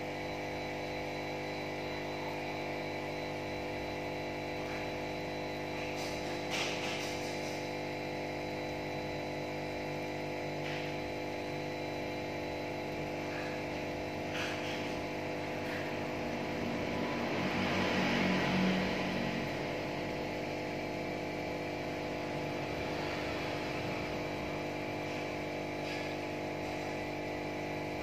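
Steady electric hum of an aquarium air pump running the bubbling gravel filter, made of several fixed tones, with a few faint clicks and a louder swell about two-thirds of the way through.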